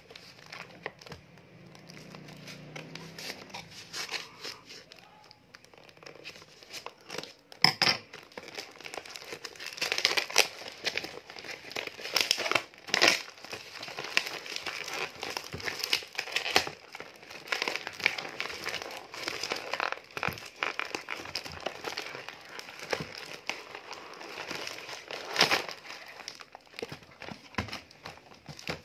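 Plastic courier mailer bag crinkling as it is handled and torn open by hand. Steady rustling is broken by several sharp, loud rips.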